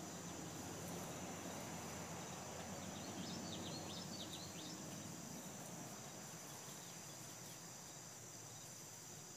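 Steady chorus of insects singing, with a quick run of short bird chirps between about three and five seconds in.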